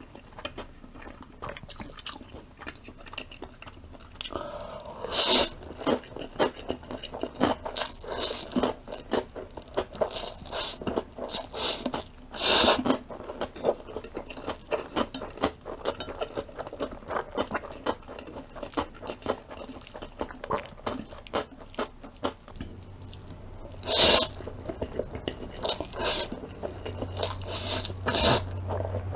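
Close-up eating sounds of a person eating instant spaghetti noodles: wet chewing and mouth clicks throughout, with several louder wet bursts along the way. A faint low hum comes in near the end.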